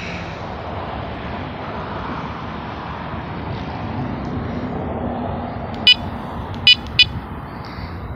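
Steady vehicle rumble at a railroad grade crossing. About six seconds in, three short, sharp high-pitched toots break through it, the last two close together.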